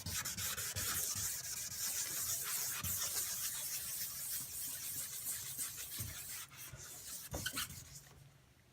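Hand sanding an oxidised plastic headlight lens with the green abrasive side of a restoration-kit pad, a steady scratchy rubbing that wears the yellowed oxidation off. The rubbing tapers off about two-thirds of the way through, with a couple of soft knocks near the end.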